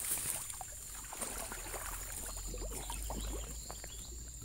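A person wading into a shallow, muddy creek: water sloshing and splashing in irregular small bursts around the legs.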